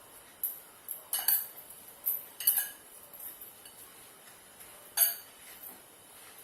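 Kitchen dishes and utensils clinking and knocking: a handful of sharp clinks in the first few seconds, then one more about five seconds in.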